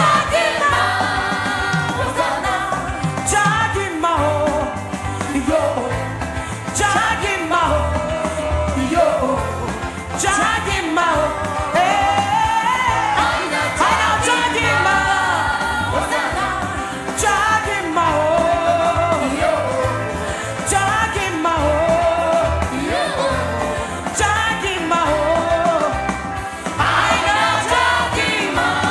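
Gospel worship song: a sung melody with gliding, ornamented lines over band accompaniment, with a steady bass and drum beat.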